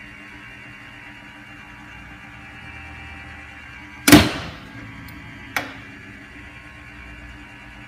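Maxon Series 5000 safety shutoff valve's motor operator running on with a steady hum, with a loud metallic clack about four seconds in and a lighter click about a second and a half later as the valve cycles open and shut. This is the sign of a failed or deflected valve open switch that never shuts the motor off.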